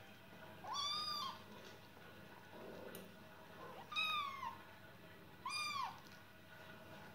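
Kittens mewing: three short, high-pitched mews, each rising then falling in pitch, about a second in, midway and near the end.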